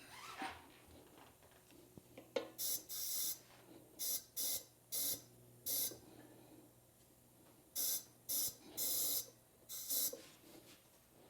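About ten short bursts of hissing, each under half a second, in two groups, while a motorcycle tire is being worked onto its rim on a tire changer; a sharp click comes just before the first group.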